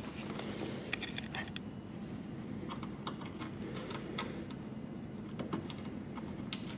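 Scattered light clicks and clinks of metal parts being handled and fitted into a car door during window regulator installation, over a steady low hum.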